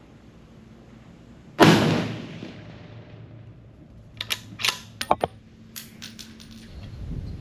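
A .308 rifle fires a single shot about a second and a half in, a sharp crack with a trailing echo. A few seconds later come a series of quick metallic clacks as the bolt is worked to eject the spent case and chamber the next round.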